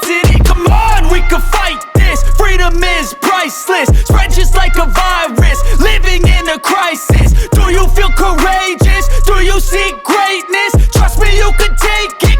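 Hip-hop music with a heavy bass beat and a vocal line.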